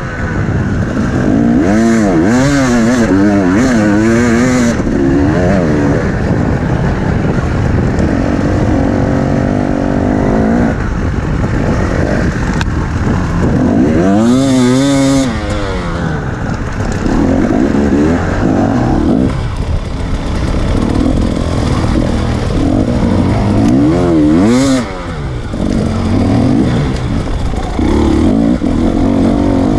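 Enduro dirt bike engine, heard from the rider's helmet as the bike is ridden, revving up and falling back again and again with the throttle.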